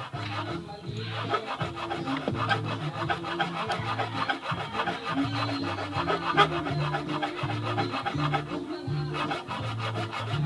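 A continuous rasping scrape, like filing or rubbing, over background music with held bass notes.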